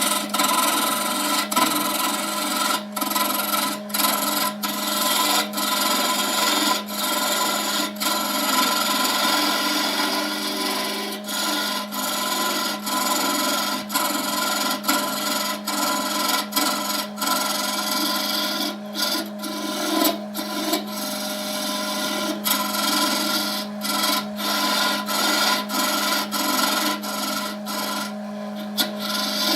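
Wood lathe running with a steady low hum while a tool scrapes against the spinning wood-and-epoxy blank, a continuous rasping broken by many brief gaps.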